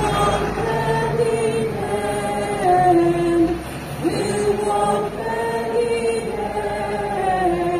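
A large crowd singing a slow song together in long held notes, with a brief break between phrases about four seconds in.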